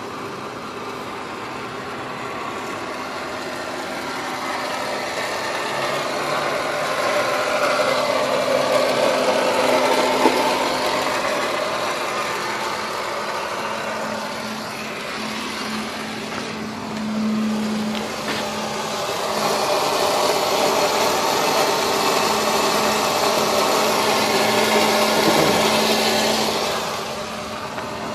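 Blower motor of a Mercedes-Benz C-Class running with a steady whirring hum under a rushing whoosh, swelling and easing in loudness over several seconds. This is the noise the car makes while it won't start.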